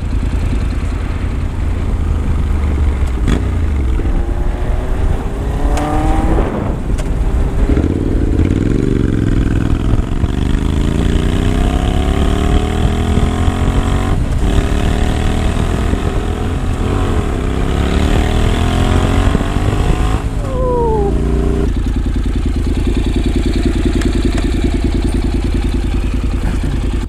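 Honda CTX700N's 670 cc parallel-twin engine through a Radiant Cycles Shorty GP slip-on exhaust, pulling away from a stop and accelerating up through the gears, its pitch climbing in several runs. About twenty seconds in the revs drop away quickly, and it then runs at a steady low speed.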